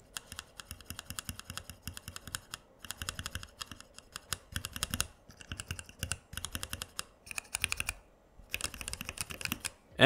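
Typing on a small macropad fitted with Gateron Ink Black linear switches under white keycaps: quick runs of keystrokes broken by short pauses, the longest gap about eight seconds in.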